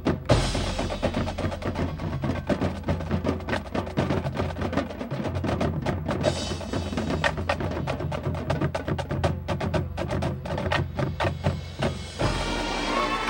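High school marching band percussion section playing a fast, dense run of sharp drum strokes and clicks. Near the end the drumming gives way to held notes.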